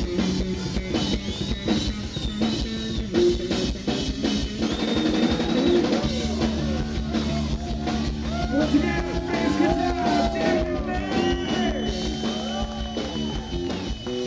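Live hard-rock band playing, with electric lead guitar notes bending and gliding over drums and bass.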